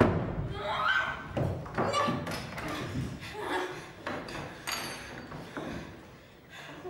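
Wordless vocal sounds and heavy thuds and knocks from a physical struggle at a wooden dining table, with bodies and chairs bumping against it.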